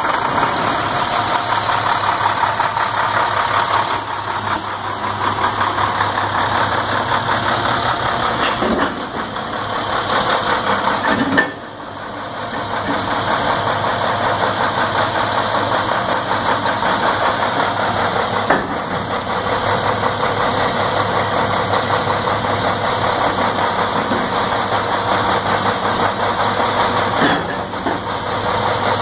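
Plow truck's engine running steadily while the blade is hydraulically angled from side to side, with a few brief dips and knocks along the way.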